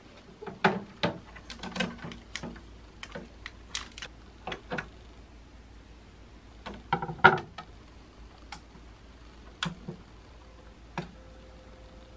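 Irregular clicks, taps and knocks of a vinyl record and a small portable turntable being handled: the record set onto the platter and the tonearm and knobs worked, with the loudest clatter about seven seconds in. A faint steady hum runs underneath.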